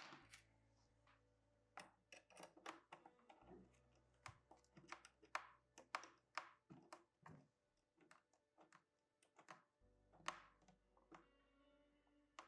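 Faint, irregular small clicks and taps as an antenna is fitted and screwed onto the EPX400 communicator.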